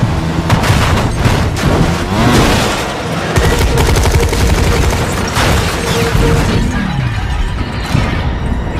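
Film action sound effects: rapid gunshots and booms over a music score, the shots thinning out near the end.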